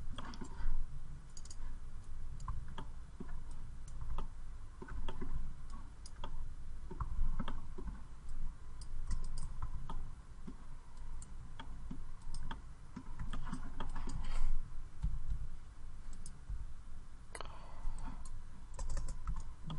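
Computer mouse clicking at an irregular pace while placing and selecting curve points in 3D software, over a low background hum.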